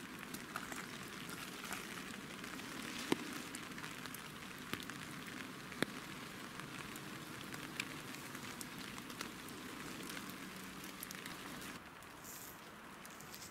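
Rain falling on grass and ground, a steady hiss with scattered single drops hitting close by; it drops a little in level near the end.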